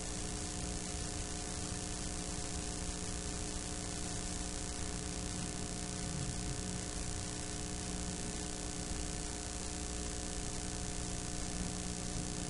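Steady hiss with a low mains hum and a few faint steady tones: the noise of a blank stretch of videotape between recorded segments.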